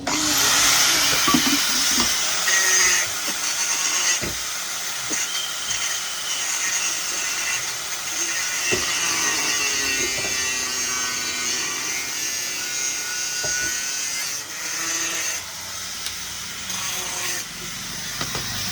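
A power tool running steadily with a harsh, high-pitched grinding noise. It starts abruptly.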